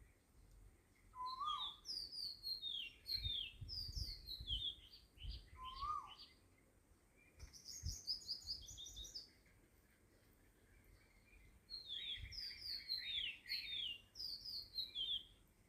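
Small birds chirping in three bursts of quick, high, falling notes, with a lower single call twice in the first half.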